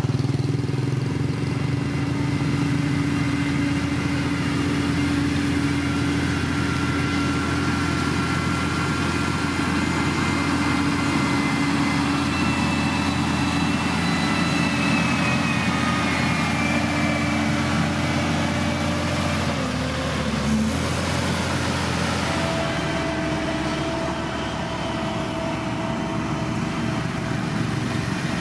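Diesel engine of heavy road-building machinery running steadily, with a faint high whine that slowly drops in pitch midway.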